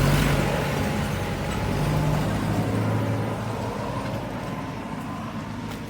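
A motor vehicle passing close by on the road: low engine hum and tyre noise, loudest at first and fading steadily as it moves away.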